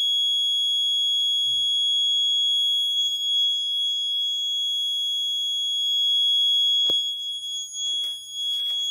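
Piezo buzzer alarm on a crack-detection robot giving one continuous, steady high-pitched tone, the alert that a track crack has been detected. A single click about seven seconds in and some faint rustling near the end.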